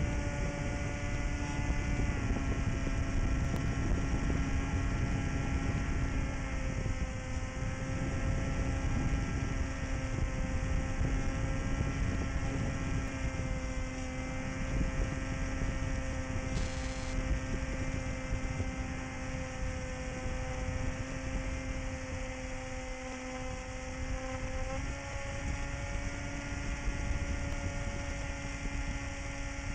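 Onboard audio of a small electric FPV plane in flight: its 2202-size 2300 kV brushless motor and 7-inch propeller give a steady whine over heavy wind rush on the camera's microphone. The pitch drops slightly about two seconds in and again about six seconds in, then steps back up near the end as the throttle changes.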